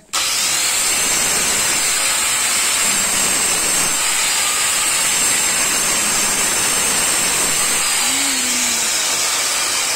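Handheld electric tile cutter (marble cutter) running and cutting through a white ceramic wall tile: a loud, steady grinding hiss with a high whine.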